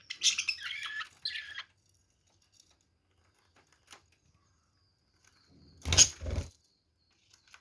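Pet budgerigar chattering and chirping for about the first second and a half, then quiet apart from a small click; about six seconds in, two loud thumps close together, the loudest sound.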